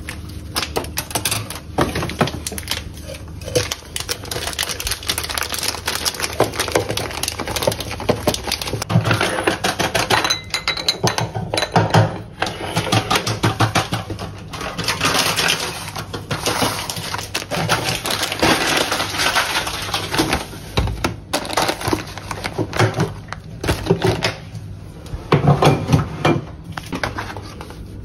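Rapid light clicks, taps and knocks from kitchen handling, with dishes and utensils knocking, and a few louder knocks along the way.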